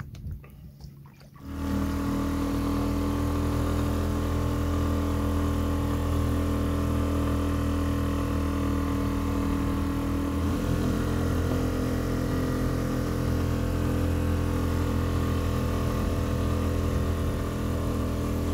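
Outboard motor on an inflatable boat, heard from aboard, starting about a second and a half in and then running steadily under way.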